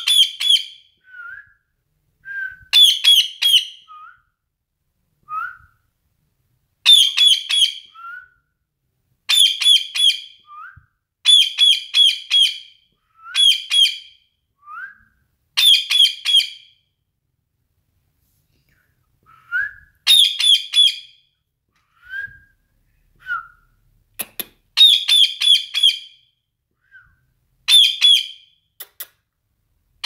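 Rose-ringed (Indian ringneck) parakeet calling: about ten bursts of rapid, high-pitched call notes, each lasting about a second, with single short rising chirps in the gaps between them.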